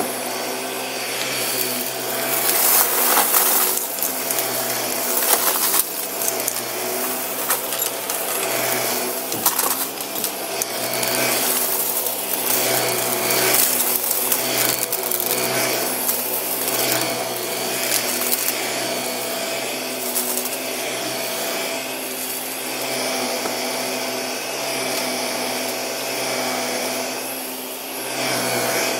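A Shark upright vacuum cleaner running steadily while pushed back and forth over carpet, its motor hum overlaid by irregular crackling as the gritty "crunchy" carpet mix is sucked up.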